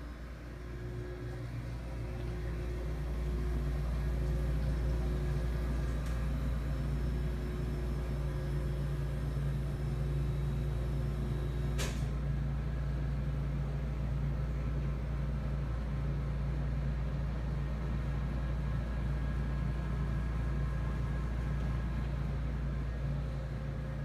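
Steady low mechanical hum of building machinery with several faint constant tones, growing louder over the first few seconds, with a single sharp click about halfway through.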